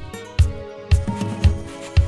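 Background music with a steady beat: a deep kick drum about twice a second under sustained, held notes.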